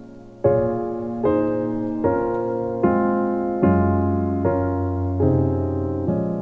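Background piano music: chords struck in a steady pulse about every 0.8 seconds, each ringing on until the next, entering about half a second in.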